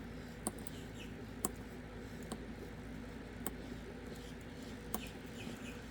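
A dimple flag pick working the pins and sliders inside a Magnum K2 dimple lock: five faint, sharp metallic clicks, spaced irregularly over a low steady hum, as the pins are worked toward setting.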